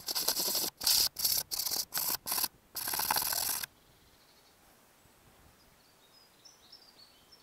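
Handling noise on a trail camera's own microphone: a run of loud rubbing and scraping bursts, about six in the first three and a half seconds, as the camera is handled. Faint bird chirps follow near the end.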